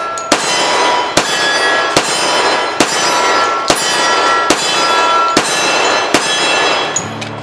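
Nighthawk Custom Falcon .45 ACP 1911 pistol firing eight shots in a steady string, about one shot every 0.8 s, each followed by a short ringing tail.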